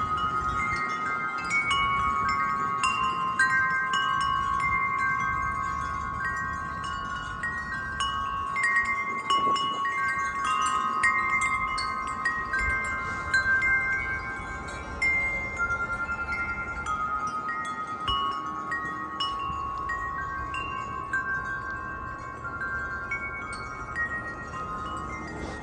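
Wind chimes ringing steadily in gusty wind, many tuned tones struck over and over and left to ring, with wind rumbling underneath.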